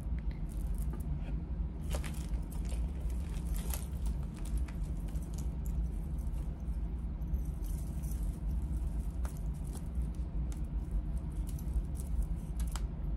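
Metal jewelry chains and bracelets jingling and clicking as they are handled and sorted, with scattered light clinks over a steady low hum.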